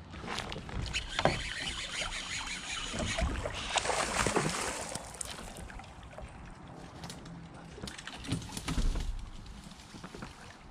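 Irregular knocks, rustles and water splashing around a fishing kayak, louder at moments about a second in, around four seconds in and near the end.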